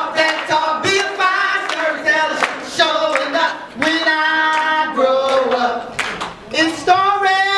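A woman singing into a microphone, other women's voices joining in, with hands clapping in rhythm along with the song.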